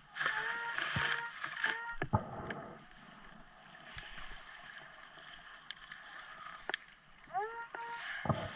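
Minelab Excalibur II underwater metal detector beeping as its coil passes over a buried target: three short steady tones in the first two seconds and another near the end, each starting with a quick rise in pitch. Water sloshes and bubbles underneath, with a few faint clicks.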